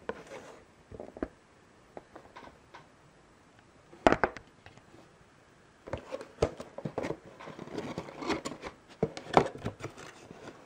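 Cardboard figure box handled by hand on a wooden table: scattered taps and scrapes of the box, a sharp knock about four seconds in, then a dense run of tapping, scraping and rustling in the second half as the box's top flaps are opened.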